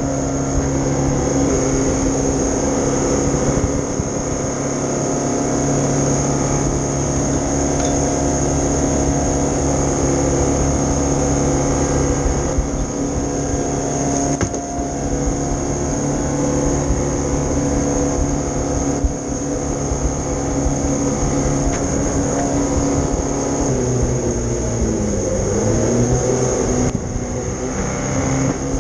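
Small river jet boat's engine running hard at steady high revs, with water rushing and spraying past the hull. Near the end the revs drop briefly and climb again.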